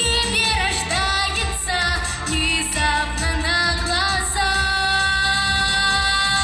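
A girl singing solo into a microphone over backing music, her voice sliding between notes, then holding one long note through the second half.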